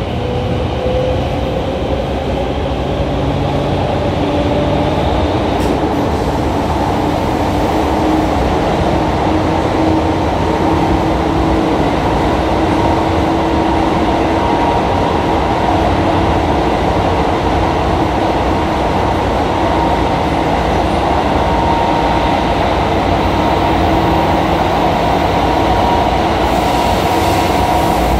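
Tobu 9000 series electric train heard from inside the car while running on the Tokyo Metro Yurakucho Line. The motor whine rises in pitch over the first few seconds as the train gathers speed, then holds steady over continuous wheel and rail noise.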